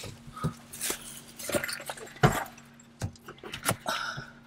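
Scattered knocks and light clinks of small items being handled and gathered inside a car, about half a dozen short sounds spread unevenly.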